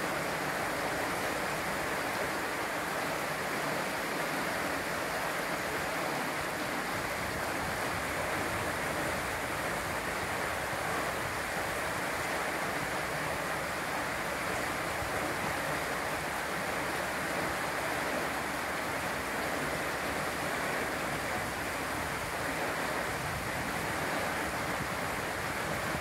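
River water rushing steadily through a gap in a low stone dam and splashing over the rocks below, a constant hiss of white water.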